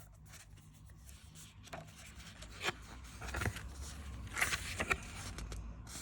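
Paper rustling and rubbing as a paperback guidebook is handled and its pages are turned: several short soft rustles, the loudest about four and a half seconds in.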